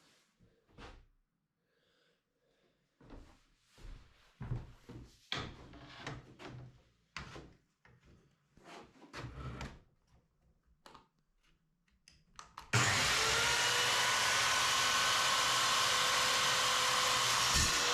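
Scattered knocks and clatter of tools and materials being handled. Then, about thirteen seconds in, an electric motor-driven tool starts abruptly and runs steadily with a whine.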